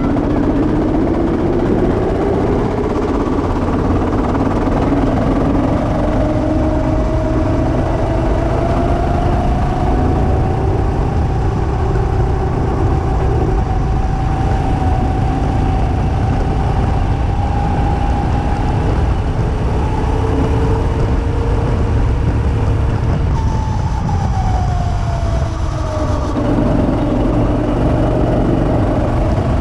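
Two-seater go-kart engine running under way, heard up close over a heavy low rumble. Its pitch climbs as the kart accelerates and holds high down the straight. It drops off about three-quarters of the way through as the kart slows, then rises again near the end as it speeds back up.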